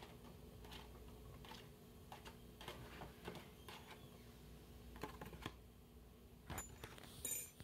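Faint, scattered light taps and clicks as carrot pieces are knocked off a plastic tray into a cooking pot, over a low steady hum.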